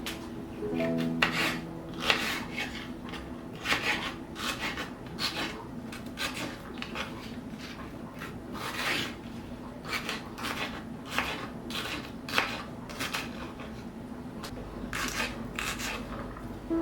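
Repeated scraping and rubbing strokes of a kitchen utensil working food, about two a second, with a short pause near the end.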